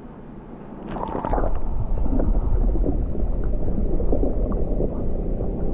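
Water sloshing and gurgling, rising in about a second in after a quieter moment, with scattered small splashes.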